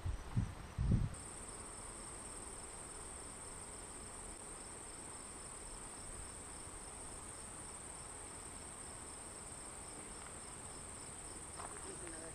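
Crickets trilling steadily in summer grass, a faint high continuous buzz with an evenly pulsing chirp beneath it. A few soft low knocks in the first second.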